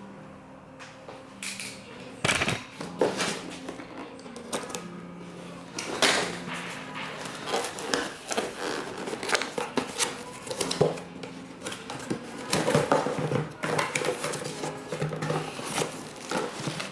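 Cardboard box being opened and unpacked by hand: irregular rustling, scraping and light knocks of cardboard, paper packaging and the contents being lifted out.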